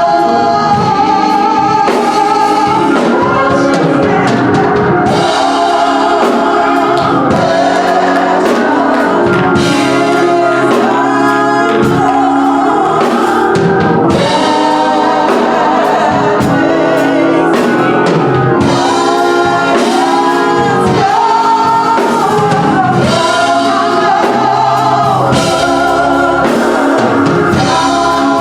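Gospel song sung by a choir with instrumental backing and drums.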